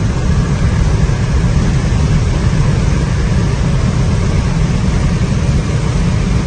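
Rimac Nevera electric hypercar at high speed: a loud, steady roar of tyre and wind noise, heaviest in the low rumble, with hiss above it.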